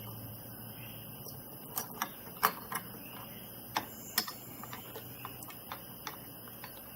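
Scattered clicks and taps of a stock CPU cooler fan being handled and fitted onto a motherboard, the sharpest about two and a half seconds in and again just after four seconds.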